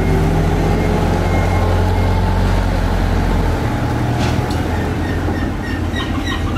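Steady low drone of a trawler's deck machinery running. Its deepest hum drops away about halfway through, and a few light knocks and short high squeaks come near the end.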